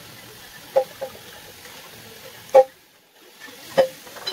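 Handling of a wooden hatchet handle on a wooden workbench: several short, sharp knocks and clicks, the loudest a little past halfway, over a steady low hiss.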